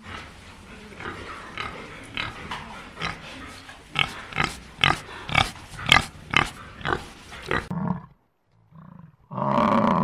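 Pigs grunting as they root and feed: a run of short grunts, faint at first, then louder at about two a second, stopping a couple of seconds before the end. Near the end, a single louder, drawn-out animal call starts.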